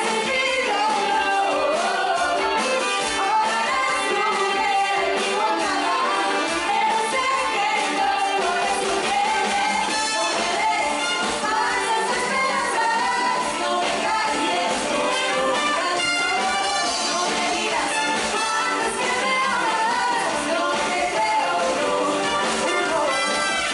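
A live band plays a song while several women sing lead. The band includes trumpets, keyboards, electric guitar and percussion, and the music holds steady at full level throughout.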